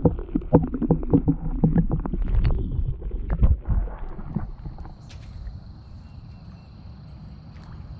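Water sloshing and gurgling around a waterproof action camera dipped under the surface beside a kayak, with many knocks and a low rumble. About four and a half seconds in it drops to a quieter background with a steady high whine.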